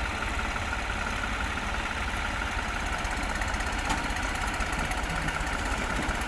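New Holland tractor diesel engine running steadily at idle, with an even low throb.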